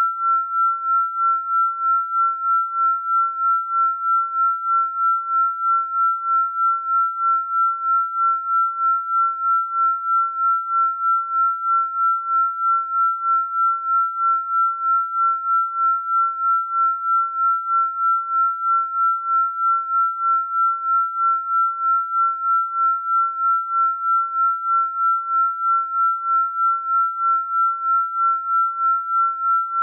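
An electronically generated pure sine tone, high-pitched and held at one steady pitch, pulsing evenly in loudness about three times a second.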